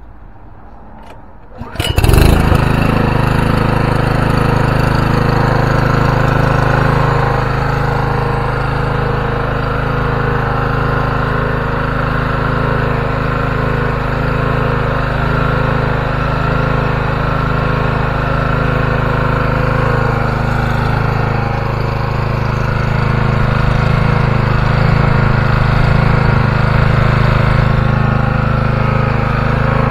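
Small Honda GX-series single-cylinder petrol engine starting about two seconds in, then running at a steady speed.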